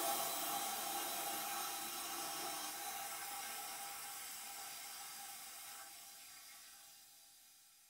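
Toilet flush dying away: a steady water hiss that fades out gradually over several seconds.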